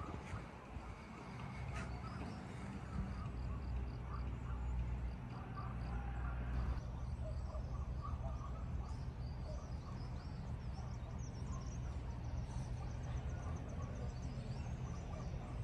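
Outdoor ambience: a steady low rumble with faint, scattered high chirps of small creatures such as insects or birds.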